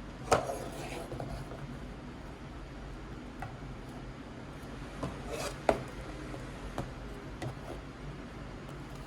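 Objects being handled and set down: a few sharp clicks and knocks, the loudest just after the start and another about halfway through, over faint room noise.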